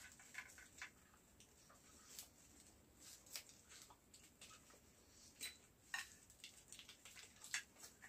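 Near silence broken by faint, scattered clicks and taps: cutlery and dishes at a meal.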